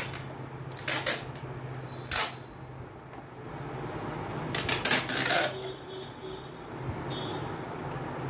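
Clear sticky tape being pulled off its roll in several short strips, about a second in, at two seconds, and longest around five seconds in, and pressed down onto a cardboard box, with small handling clicks. A steady low hum runs underneath.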